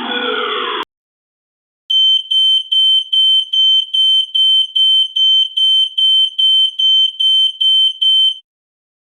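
Electronic alarm beeping rapidly and evenly, one high-pitched tone about two and a half times a second, for some six seconds. Before it, the end of a different alarm, a repeating falling sweep, cuts off under a second in.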